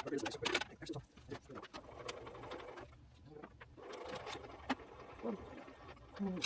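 Metal clicks and rattles of hand tools and saw parts being handled, a quick clatter of taps in the first second and more around the middle, over a low hum.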